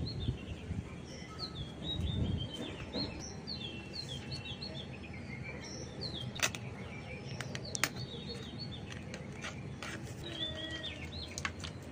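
Small birds chirping over and over in short falling notes. A couple of sharp clicks, about six and a half and eight seconds in, come from raw crab shells being cracked and cleaned by hand on a boti blade.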